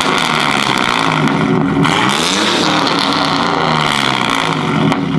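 V6 pickup truck engine running through a freshly fitted aftermarket exhaust with a resonator, revved so the exhaust note rises and falls, with one clear rev up and back down a little past two seconds in. Loud, with no drone.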